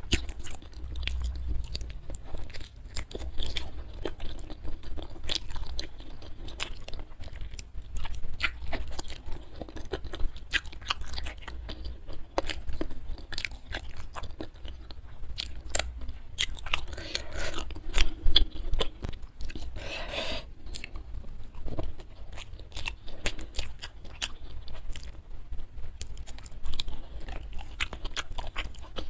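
Close-miked mouth sounds of a person chewing a mukbang meal of spiced chicken feet, rice and young jengkol eaten by hand: wet crunching and sharp mouth clicks keep up throughout. A louder, noisier stretch of chewing comes about two-thirds of the way in.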